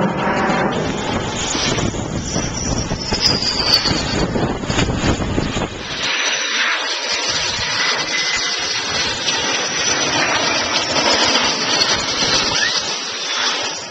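Aircraft on approach passing low overhead: loud, steady rushing engine noise with a high turbine whine that falls in pitch as it goes by, fading away into wind noise at the end.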